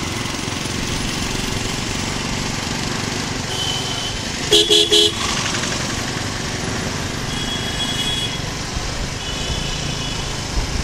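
Motorcycle running at low speed in town traffic; about four and a half seconds in, a vehicle horn beeps three times in quick succession, the loudest sound, with fainter horn toots later on.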